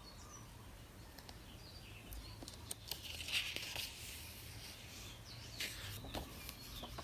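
Faint paper rustle of a picture-book page being turned, swelling about halfway through, with a few light clicks and a low steady hum underneath.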